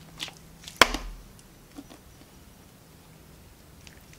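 Slimy Elasti Plasti stretchy slime being pressed and kneaded by hand: a couple of sharp pops in the first second, the loudest about a second in, then only faint small ticks over a faint steady hum.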